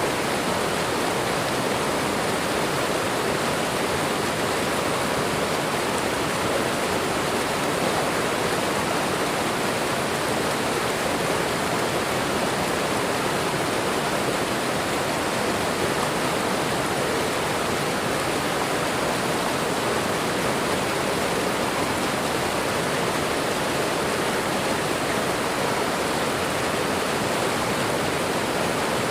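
Waterfall and running water: a steady, unbroken rush.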